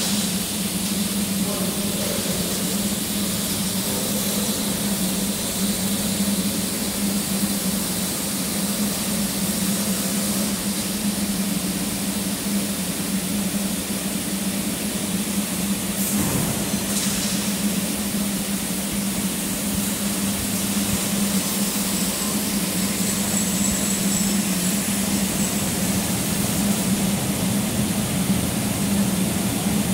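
LVD Axel 3015S 4 kW fibre laser cutting 20 mm mild steel: a steady hiss of the cutting jet over a low, steady hum, with a short burst of noise about sixteen seconds in.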